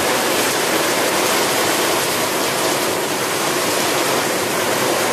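Heavy rain pouring onto a wet road, a loud, steady, even hiss.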